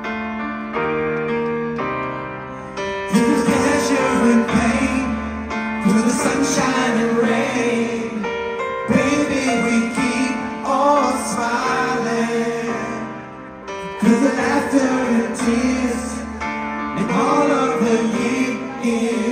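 Live pop ballad: piano chords open alone, then a male vocal group comes in singing over the piano about three seconds in.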